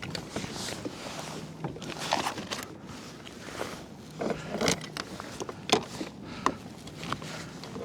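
Scattered small clicks, knocks and rustles of fishing tackle being handled on a kayak while the hook is rebaited with squid.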